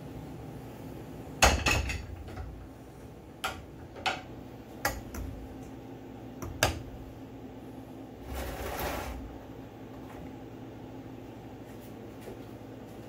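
Metal fork clinking and knocking against a stainless steel saucepan while stirring and lifting noodles: a cluster of sharp clinks about a second and a half in, then single clinks every second or so, and a short scraping rush around eight seconds. A steady low hum runs underneath.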